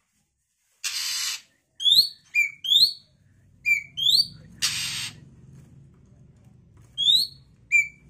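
Young oriental magpie-robin calling: short whistled notes that sweep upward, about seven in all in loose groups, with two harsh rasping bursts, one about a second in and one near the middle.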